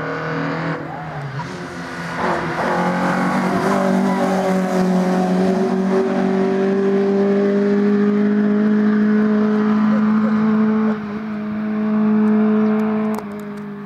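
Rally car engine running hard at high revs as the car drives the stage, its note climbing and then held high and steady. About 11 s in it dips briefly and picks up again, then cuts off abruptly near the end.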